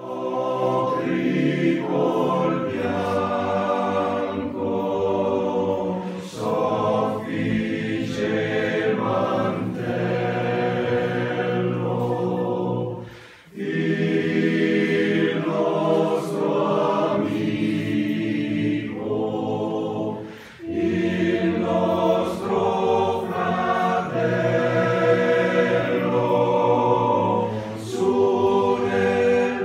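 Male voice choir singing a cappella in close harmony, in sustained phrases with short breaks between them, the clearest about 13 and 20 seconds in.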